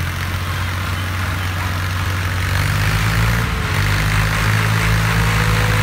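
Massey Ferguson tractor diesel engines running, growing louder about two and a half seconds in.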